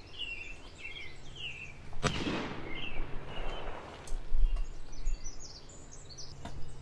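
A single gunshot about two seconds in, followed by a rolling echo lasting over a second, with small birds chirping before and after. A low thump near the middle is the loudest moment.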